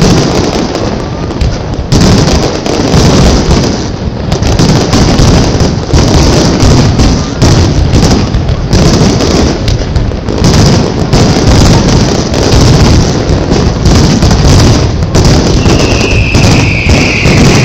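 An aerial fireworks display going off in a rapid, loud barrage of overlapping shell bursts, bangs and crackles with no let-up. A high whistle comes in near the end, sliding slowly down in pitch.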